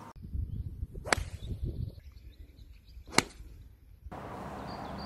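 Two sharp cracks of a golf club striking a ball, about two seconds apart, the second louder, with wind rumbling on the microphone during the first couple of seconds.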